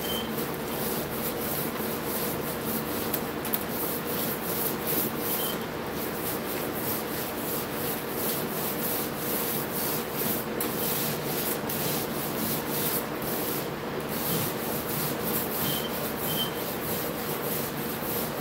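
Paint roller on an extension pole rolling wet screen paint back and forth over a flat board: a continuous rubbing, with a steady low hum underneath.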